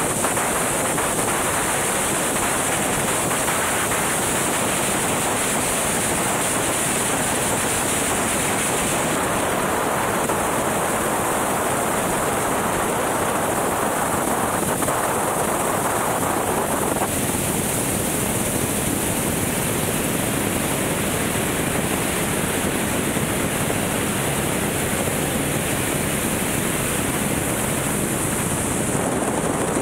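Helicopter in flight: a steady rushing of rotor and engine noise mixed with wind on the microphone. The sound thins a little about 17 seconds in.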